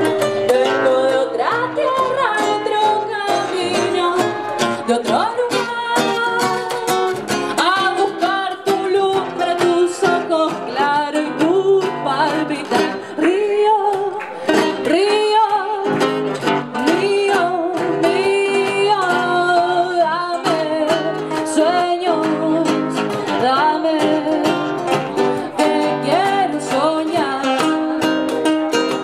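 A woman singing a folk song, accompanied by a plucked acoustic guitar, performed live.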